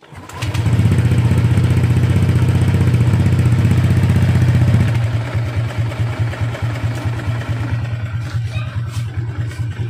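Honda Click 150 scooter's single-cylinder four-stroke engine starts about half a second in and idles through a newly fitted MT8 aftermarket exhaust, with an even pulsing note. The idle is higher for the first few seconds, then drops a little at about five seconds and settles steady. The exhaust note is not loud.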